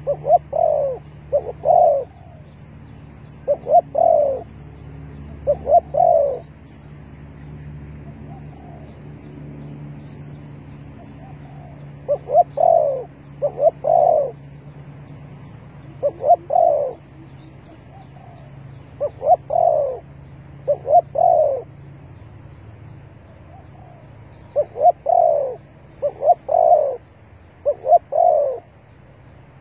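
Spotted dove cooing: phrases of two or three short, falling coos repeated every few seconds, with faint high chirping of small birds behind.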